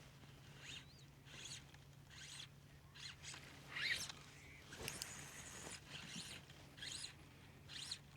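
Textured fly line being stripped in through the rod guides in short pulls, each pull a faint rasping zip, about ten pulls at uneven spacing.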